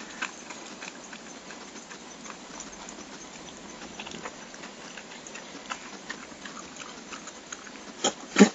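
Dog eating and lapping from a bowl of water: scattered soft clicks and slurps, with two louder knocks near the end.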